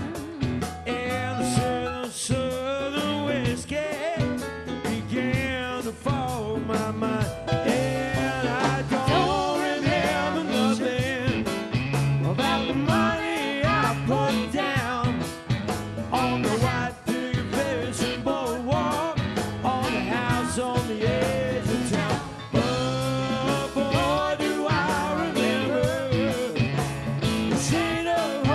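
Live rock band playing: drums, electric guitars and keyboards together at full volume.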